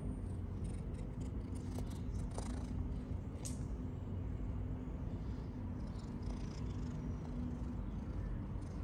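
A cat purring close to the microphone, a steady low rumble, with a few light taps about two to three seconds in.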